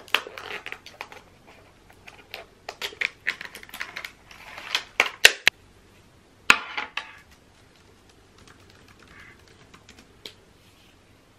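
Unboxing noise: plastic packaging crinkling and cardboard box parts being handled, in quick bursts of crackles and clicks with two sharp knocks around the middle, then fading to faint rustles for the last few seconds.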